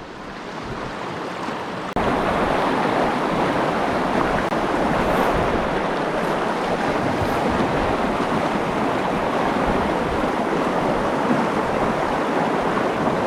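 Steady rush of flowing stream water, which turns suddenly louder about two seconds in.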